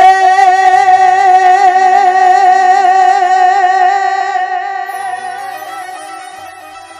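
A male singer holding one long sung note with vibrato over a microphone and PA, starting suddenly and loud, then fading away over the last few seconds, with faint backing notes behind it.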